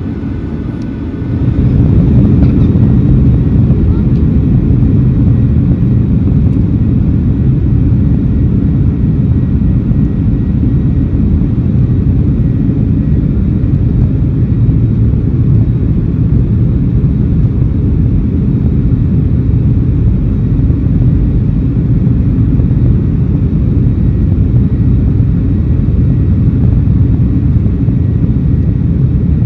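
Boeing 737-800's CFM56-7B engines at takeoff power, heard from inside the cabin with a deep rumble. The sound jumps up sharply about a second in and then stays loud and steady.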